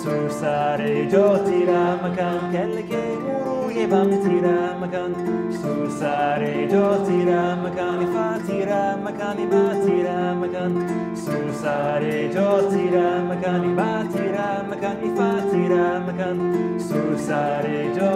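West African kora, a 21-string harp, played with a repeating plucked pattern of low bass notes under quicker treble runs that comes round about every two seconds, with a man's voice singing along.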